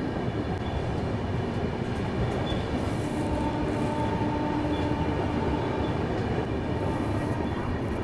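Passenger express train running at speed through a station without stopping, heard from the open doorway of a coach: a steady rumble of wheels on rail and rushing air. A faint steady whine joins for a few seconds in the middle.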